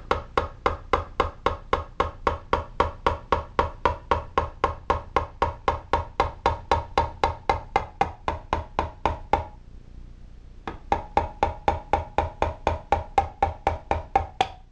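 Light, evenly spaced taps on a piston driving it through a ring compressor into a Tecumseh LV195EA engine's cylinder, about four a second, each with a short metallic ring. The tapping stops for about a second roughly two-thirds of the way in, then starts again.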